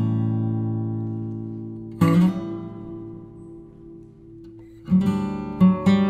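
Background music on plucked acoustic guitar: a chord rings and fades, a new chord is struck about two seconds in and dies away, then quicker plucked notes start near the end.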